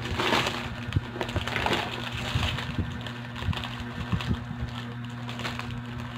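Crinkling and rustling of a clear plastic wrapper and paper being handled and pulled apart, with scattered small clicks, loudest near the start and again about two seconds in.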